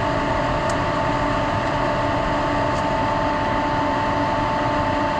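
Steady drone of running plant machinery and ventilation in a printing-press room, with a constant whining tone held over it and a couple of faint ticks.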